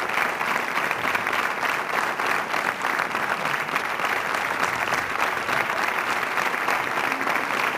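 Theatre audience applauding steadily: dense, sustained clapping for the dancers' curtain call.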